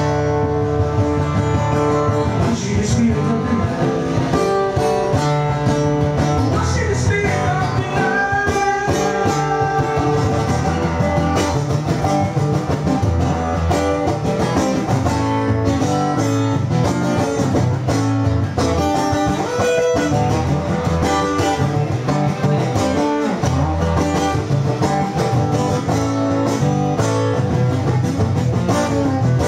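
Acoustic guitar played live, a continuous instrumental passage with no sung words.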